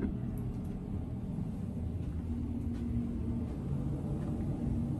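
Steady low rumble of background noise with no distinct events, a faint steady hum rising slightly about halfway through.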